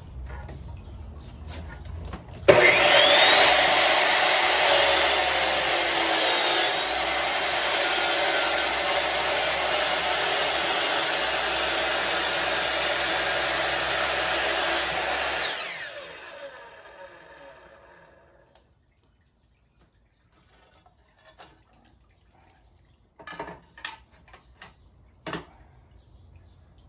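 Chop saw fitted with a diamond blade and a pump-fed water feed starts up about two and a half seconds in, its motor whine rising quickly then holding steady through a tile cut for about thirteen seconds before winding down. A few short knocks follow after it stops.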